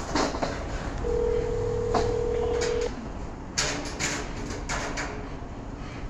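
Telephone ringback tone: one steady ring tone lasting about two seconds, starting about a second in, the signal that the line is ringing at the other end with no answer yet. Short clicks and knocks come through around it, the sharpest a little past halfway.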